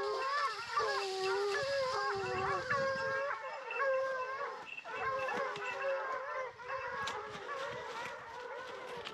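A pack of Porcelaine hounds baying together on the trail of a wild boar: several overlapping, long, wavering howls, easing off a little in the last couple of seconds.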